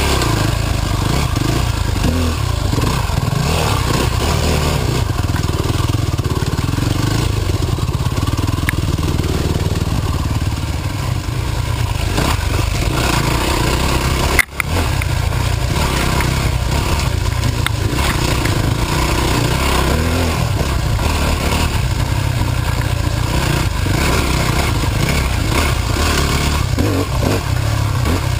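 Dirt bike engine running steadily on board while riding a muddy woodland trail, a constant low rumble with wind and brush noise over it. A single sharp knock about halfway through, with a brief dip in the sound.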